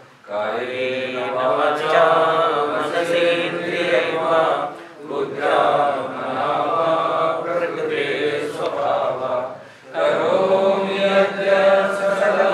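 Devotional mantra chanting, sung in long phrases with short breaks for breath about every five seconds.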